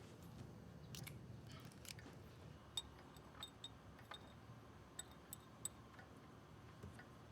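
Near silence: quiet room tone with a scatter of faint, irregularly spaced small clicks and ticks, a few with a light ring to them.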